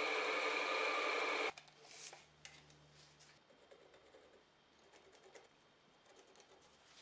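Metal lathe running, its cutting tool turning down a wooden handle with a steady running and cutting sound that stops suddenly about one and a half seconds in. After that only faint clicks and rubbing as the stopped handle is measured with a tape measure.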